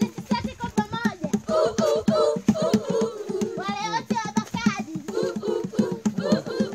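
A group of children singing together, with a steady rhythmic beat running under the song.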